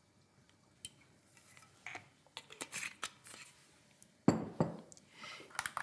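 Kitchen utensils and bowls being handled while making dough: scattered light clinks, then a louder knock and clatter about four seconds in.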